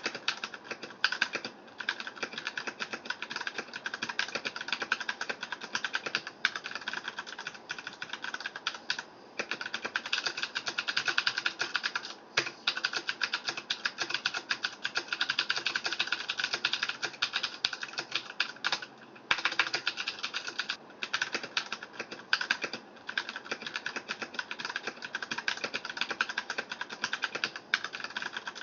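Filco mechanical keyboard with clicky Cherry MX Blue switches being typed on quickly and continuously, a dense run of key clicks with a few brief pauses.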